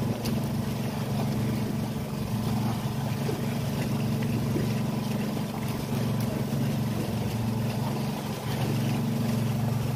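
Engine of a motorised outrigger fishing boat running at a steady, unchanging drone.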